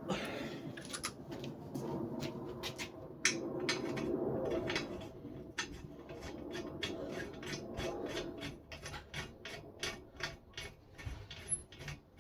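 Jeep spare tire being worked back onto its carrier and the lug nuts screwed on by hand: rubbing and scraping at first, then a quick run of light clicks of metal on metal.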